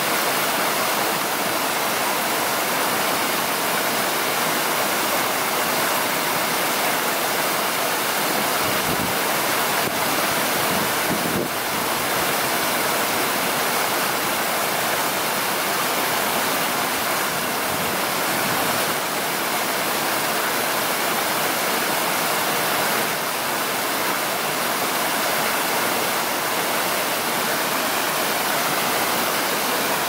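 Steady, even rushing hiss of an outdoor nature ambience, with no gusts, swells or distinct events.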